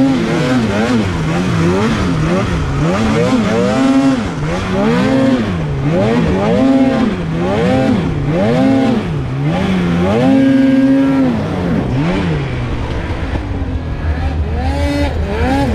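Polaris Khaos Slash 9R snowmobile's 850 two-stroke engine revving up and falling back over and over, roughly once a second, sometimes held high for about a second as the throttle is worked. Near the end the revving eases off and a steady low drone comes in underneath.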